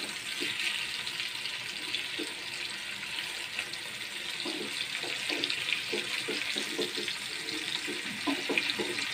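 Masala-coated fish steaks shallow-frying in hot oil in a pan, a steady sizzle, with light knocks and scrapes of a wooden spatula and a spoon against the pan as the pieces are turned over, coming more often in the second half.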